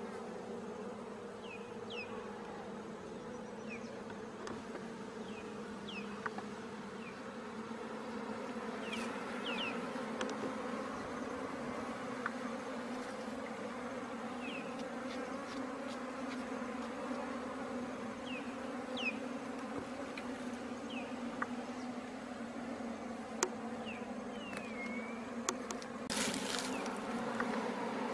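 Honeybee colony buzzing as a steady, low two-tone hum around its opened nest in the ground, the bees disturbed as their comb is pulled out by hand. A few short high chirps and clicks sound over it, and a brief rustle comes near the end.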